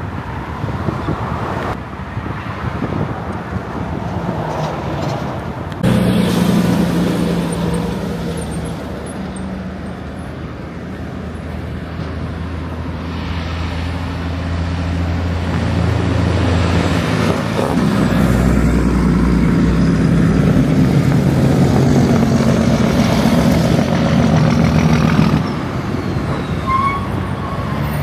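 Road traffic with cars and heavy trucks running past. Clips change abruptly about six seconds in. In the middle part the engine and road noise is heard from inside a moving car.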